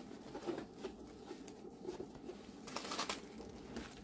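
Rolled diamond-painting canvas being unrolled and smoothed out by hand: soft rustling and crinkling of the stiff sheet, with a louder crackle about three seconds in.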